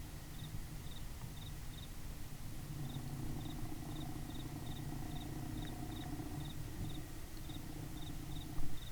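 An insect chirping in short high pulses at an even rhythm, two to three a second, over a low outdoor rumble. A faint low hum comes in about a third of the way through, and a brief thump sounds near the end.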